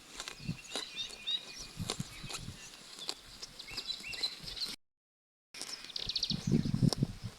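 Small songbirds chirping and twittering, over short tearing and crunching sounds of sheep cropping and chewing grass close by. The sound cuts out for under a second about two-thirds through. Heavier, lower crunching follows near the end.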